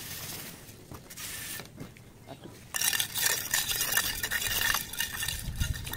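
Steel trowel scraping and clinking through mortar on brick, in a dense run of scrapes and taps that starts about halfway through.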